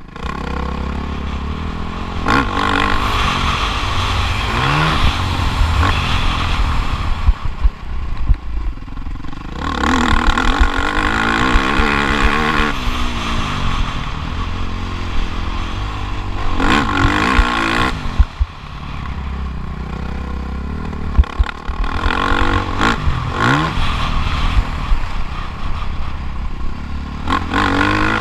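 Motocross bike engine revving hard and easing off again and again as it is ridden round the track, with pitch climbing in surges about every few seconds. Under it runs a constant low rumble of wind on the microphone, with frequent sharp knocks and clatter.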